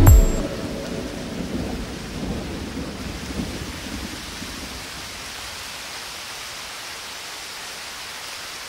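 Thunder and rain storm effect: the music stops right at the start, and a low thunder rumble fades over about four seconds above a steady hiss of rain.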